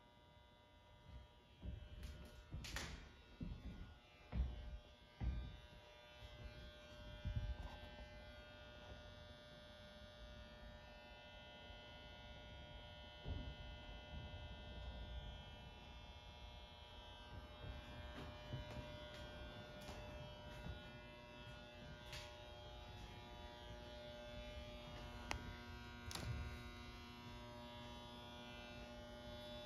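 A steady electrical buzz made of several held tones, running throughout, with a scatter of low thumps and knocks, most of them in the first eight seconds and a few later.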